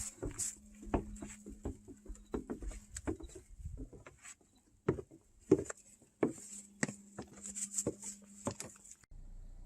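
An irregular run of light knocks and crunches, some louder than others, that cuts off abruptly near the end.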